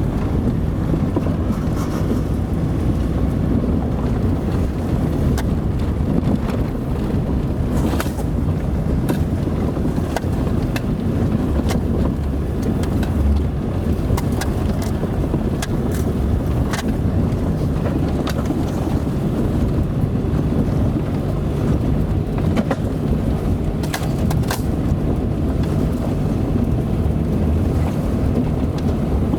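A car driving on a dirt road: a steady low rumble of engine and tyres, with scattered sharp clicks and knocks.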